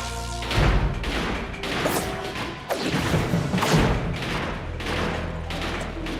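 Fast cartoon action music with a string of thuds and crashes from fight sound effects.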